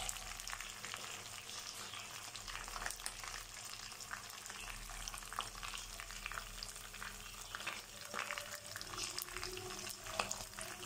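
Sliced onions frying in hot oil and ghee in a wok: a steady sizzle scattered with small crackles and pops.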